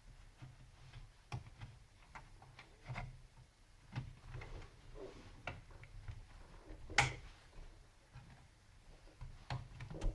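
Scattered light clicks and taps of plastic laptop case parts being handled and pried, with one sharper click about seven seconds in.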